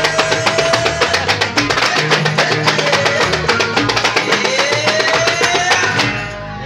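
Jepin (Malay zapin) dance music: a steady beat of drums and percussion under plucked strings, with a held melody line that slides up and down in pitch. The music breaks off about six seconds in.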